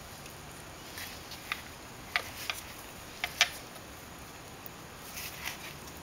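Light sharp clicks and taps of Nikki carburetor parts being handled and fitted together, a handful of them in the first half and a few fainter ones near the end.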